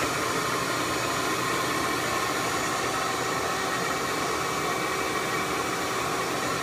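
Bee vacuum running steadily, a whooshing suction noise with a faint hum, as its hose nozzle sucks honey bees off a cluster hanging under a pulled-up floorboard.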